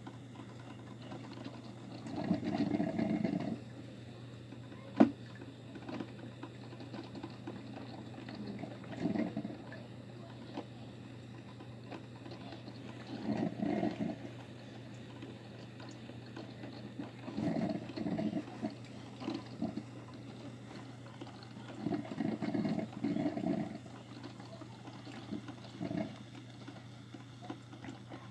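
Broken, leaking coffee machine humming steadily, with a short burst of watery gurgling every four to five seconds and a single sharp click about five seconds in.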